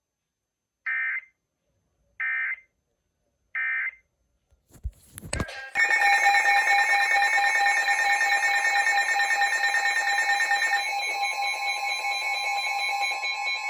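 Three short bursts of Emergency Alert System data tones, the end-of-message code, with silence between them. After a brief crackle, a loud, steady electronic alert tone made of several pitches starts and holds, its sound changing slightly about eleven seconds in: the EAS attention signal.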